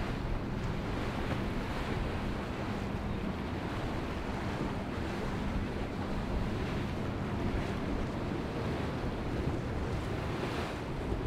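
Astondoa motor yacht running past at speed: rushing water from its bow wake and churned sea over a faint low engine hum, with wind on the microphone. The sound stays steady throughout.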